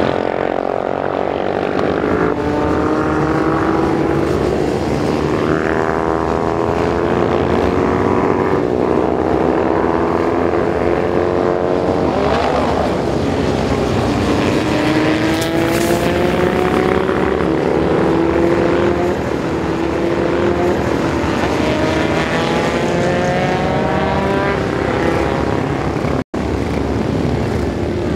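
Several classic racing motorcycles at full throttle, their exhaust notes overlapping and climbing in pitch again and again as they accelerate and change up through the gears. The sound cuts out for an instant near the end.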